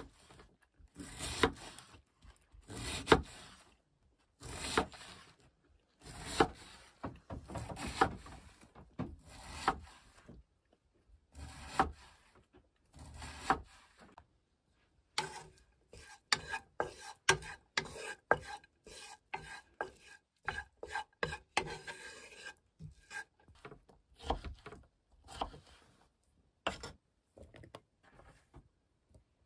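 Large kitchen knife slicing through a cabbage onto an end-grain wooden cutting board, one stroke about every second and a half; about halfway through, the strokes come quicker and lighter for several seconds before slowing again.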